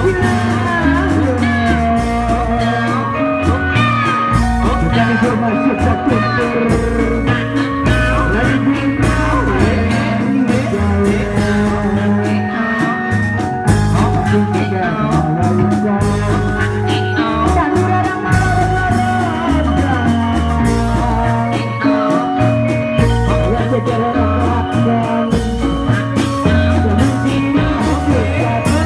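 Dangdut-style bendrong music with singing and a steady beat, played loud over loudspeakers.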